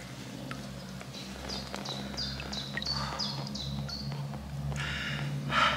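A small bird singing a quick run of short, high, falling notes, about three a second, with a brief burst of noise near the end.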